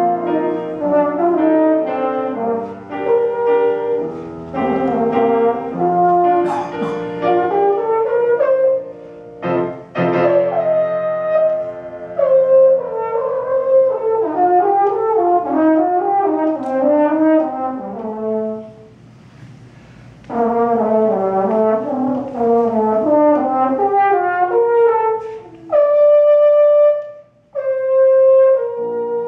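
French horn playing a melodic solo, with piano accompaniment sounding several notes at once beneath it. Near the end the horn holds two long notes.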